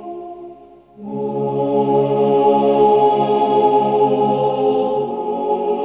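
Background music of sustained, held chords. It fades almost away in the first second, then swells back in and holds steady.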